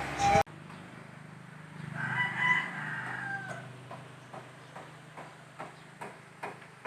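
A rooster crowing once, one long call that drops in pitch at the end, over a steady low hum. Light clicks follow, about two a second.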